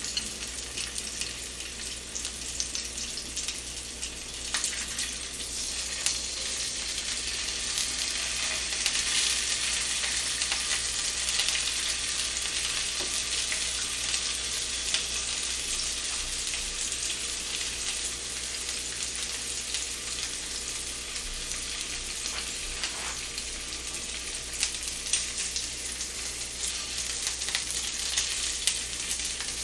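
Scored frankfurters sizzling steadily in a frying pan, with a few light clicks near the end as chopsticks turn them.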